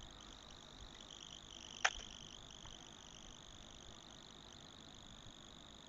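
Faint steady hiss of background noise, with one sharp click about two seconds in.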